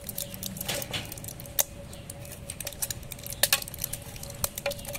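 Plastic blister pack of candies crinkling and clicking as the sweets are pressed out through the foil backing, with several sharp clicks, the loudest a little after a second in and again at about three and a half seconds.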